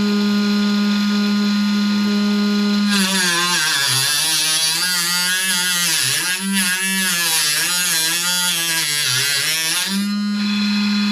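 Electric arrow cutter running: its motor hums at a steady pitch, then for about seven seconds the pitch drops and wavers with a grinding hiss as the spinning wheel cuts through a high-modulus carbon fishing-rod blank. Near the end the load comes off and the motor returns to its steady free-running pitch.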